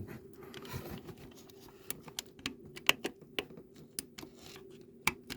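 Irregular sharp clicks and crackles at a faulty USB wall socket as a plug is pushed in, over a faint steady hum.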